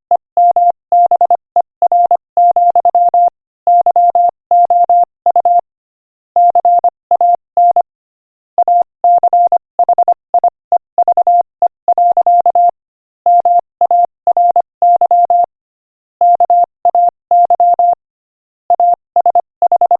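Morse code practice tone: a single steady beep keyed on and off in short dots and longer dashes at 25 words per minute, with brief pauses between words.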